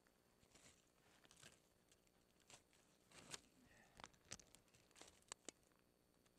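Faint crunching and rustling in dry leaf litter and twigs, with a cluster of sharp snaps and clicks between about three and five and a half seconds in, the loudest a little after three seconds.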